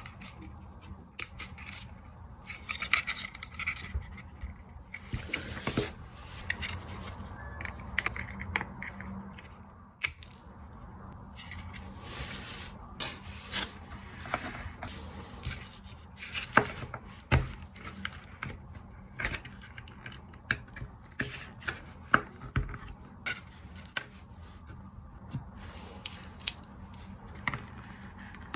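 Small plastic parts and screws of a cheap LED night light being handled and pried apart by hand and with small tools: irregular scraping and rubbing, with sharp clicks and taps scattered throughout and a few louder taps in the second half.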